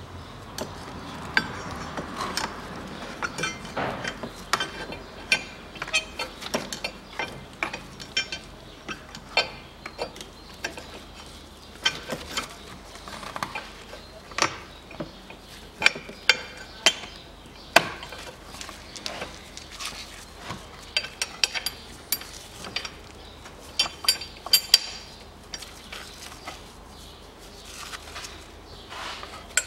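A wrench and a metal bracket clinking and clicking irregularly as the bracket is bolted back into place in the engine bay.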